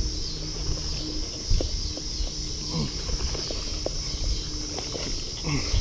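Spinning reel being cranked to bring in a hooked bass, with scattered light clicks and knocks from handling the rod, over a steady high drone of insects.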